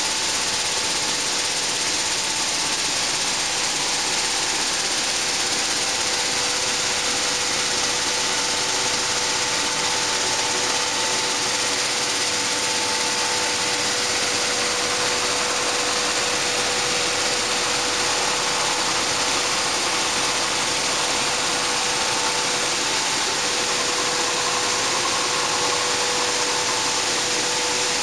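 Sunflower seed huller line running steadily: vibrating screen decks shake seeds and hulls over sieves, giving a continuous hiss of moving seed over a constant machine hum with two steady tones.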